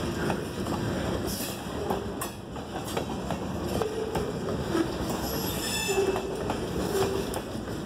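Freight cars rolling past at close range: steel wheels clacking and knocking over the rail, with wavering metallic wheel squeals throughout and a higher squeal about five to six seconds in.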